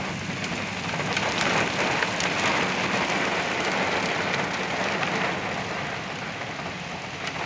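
Heavy thunderstorm rain falling: a steady, dense hiss with scattered sharp drop taps.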